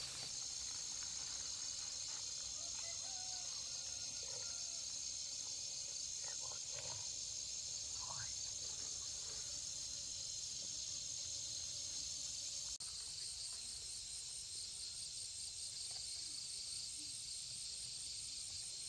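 Insects shrilling in a steady, high-pitched chorus outdoors; about two-thirds of the way through it switches abruptly to a rapidly pulsing trill.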